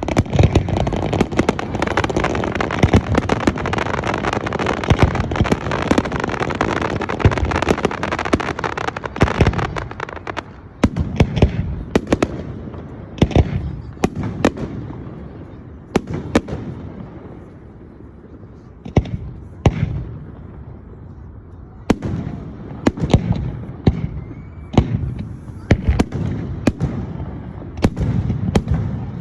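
Fireworks salute going off: a dense barrage of bangs and crackle for about the first ten seconds, then separate sharp bursts with short gaps between them, growing denser again near the end.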